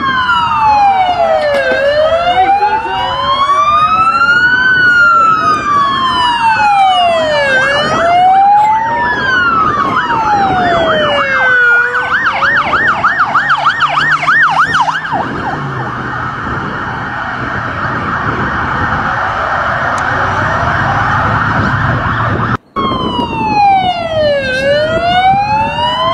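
Electronic emergency-vehicle siren: a slow wail rising and falling about every three seconds, switching to a rapid yelp about twelve seconds in, then a rougher, steadier stretch. It drops out for a moment near the end and comes back as the slow wail.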